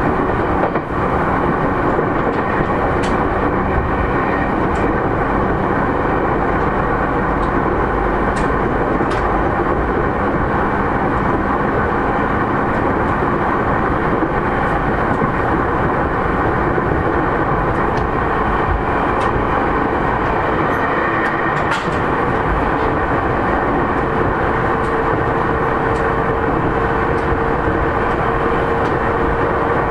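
JR East E231-3000 series electric train with Mitsubishi IGBT-VVVF drive, running steadily along the track: a continuous rumble of wheels on rail with a few sharp clicks. A faint steady tone joins the rumble about three-quarters of the way through.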